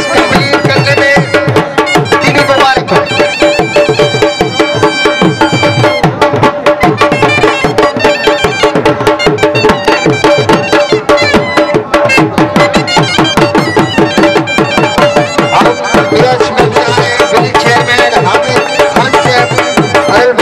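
Traditional folk music played live on dhol drums, beaten in a fast, steady rhythm under a held, droning melody from a wind instrument.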